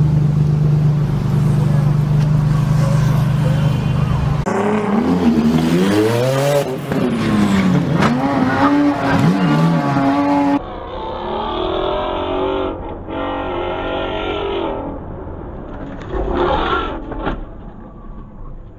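A Ferrari Enzo's V12 engine running with a steady low drone. After a cut, car engines rev up and down again and again, and near the end there is a short, louder burst.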